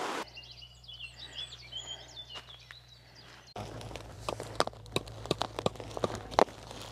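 Birds chirping and singing for about the first three seconds. Then, from about three and a half seconds in, rustling and crinkling with scattered sharp clicks as woven plastic weed-control fabric is pulled tight and tucked down by hand.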